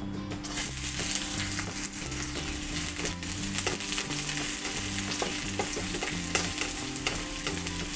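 Chopped onion sizzling in hot mustard oil with cumin seeds in a steel kadai (wok); the sizzle starts about half a second in as the onion goes in. A wooden spatula stirs it, with light scrapes and taps against the pan.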